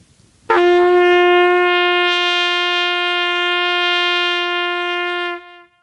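A shofar (ram's horn) sounded in one long, steady blast held for about five seconds, starting sharply and cutting off shortly before the end.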